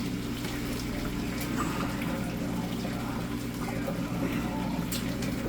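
Water running and splashing in a kitchen over a steady low mechanical hum.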